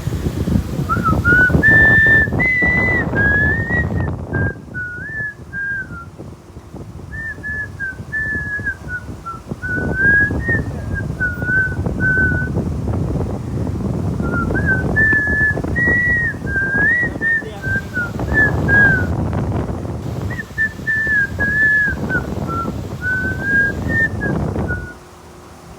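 A person whistling a wandering tune in phrases with short pauses, over a low rushing noise that swells and fades and drops away near the end.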